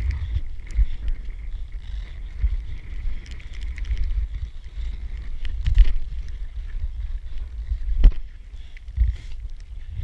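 Wind buffeting the microphone in an uneven low rumble, with a couple of short sharp knocks, one near the middle and one later on.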